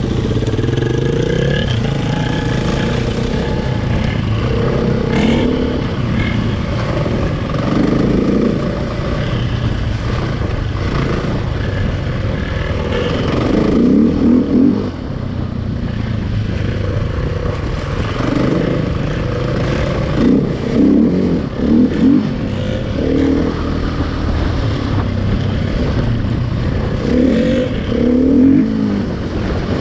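KTM EXC enduro motorcycle engine running, rising and falling in repeated bursts of revving, louder about halfway through and again near the end.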